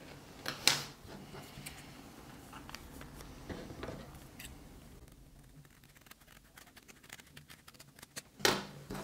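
Scissors cutting through folded brown paper: a run of quick, close-spaced snips in the second half, ending in a louder cut.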